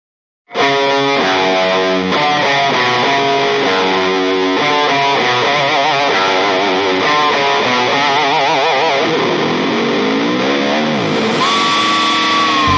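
Background music: an electric guitar playing a melodic line, with wavering vibrato notes and pitch bends, ending on a long held note that bends downward.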